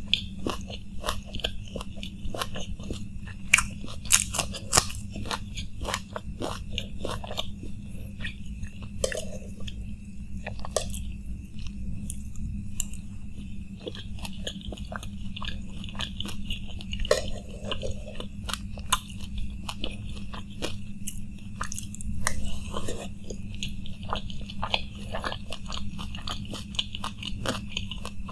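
Close-up crunching and chewing of crisp, hollow puri shells (panipuri/dahi puri). The sharp crunches come thick in the first few seconds, thin out in the middle, and pick up again toward the end.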